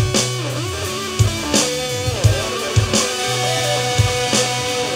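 Rock jam: guitar playing over sustained bass notes with a drum kit keeping a steady beat.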